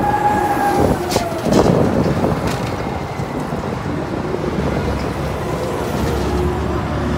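Rumbling and rattling of a carnival thrill ride's metal cage car in motion, with several sharp knocks in the first few seconds.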